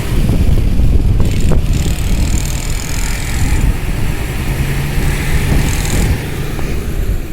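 Heavy construction machinery with a diesel engine running, a deep steady rumble with a steady engine hum from about four and a half seconds in. Two short sharp knocks come a little over a second in.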